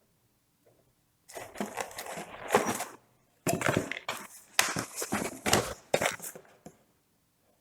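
Packaging and kit parts being handled during an unboxing: rustling and light clatter in two spells, starting about a second in and again from about three and a half seconds until near the end.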